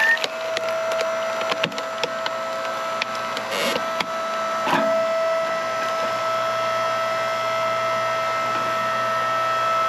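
Hydraulic log splitter running with a steady whine while it forces a knotty log apart, the wood cracking and splintering a few times.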